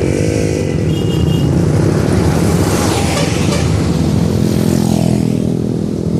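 A motor vehicle's engine running steadily, with a rush of noise that swells and fades about halfway through.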